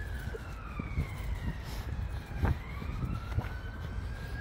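An emergency vehicle's siren on a slow wail, its pitch falling for about two seconds and then rising again, with low rumble and a few dull thumps underneath.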